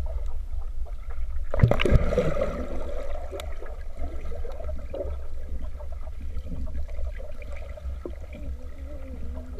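Muffled underwater sound from a camera held below a swimming pool's surface: a steady low rumble, a child plunging into the water about a second and a half in, then bubbling and gurgling as he swims underwater.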